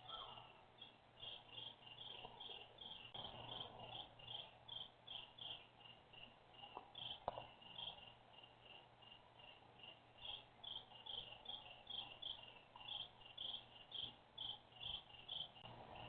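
Crickets chirping in a steady, regular rhythm, about two chirps a second, with a faint low hum underneath. A single sharp click about seven seconds in.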